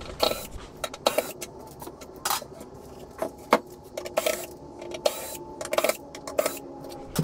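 Irregular knocks and clatter of a white melamine drawer box being handled, then a small cordless drill-driver whirring from about halfway in as the screws holding the drawer rollers are backed out.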